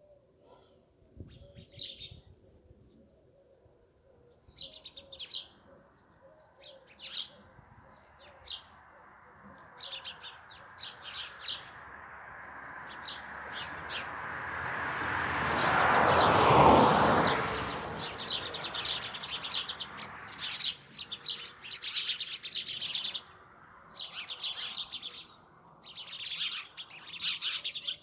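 Sparrows chirping in short bursts, scattered at first and then almost continuous in the second half. A loud whooshing noise swells over several seconds, peaks a little past the middle and fades away.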